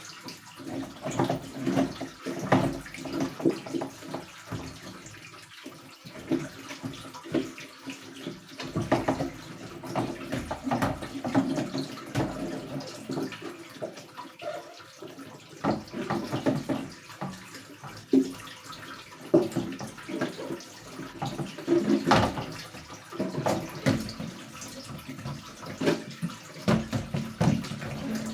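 Water splashing and sloshing in irregular bursts as fridge parts are washed by hand in soapy water.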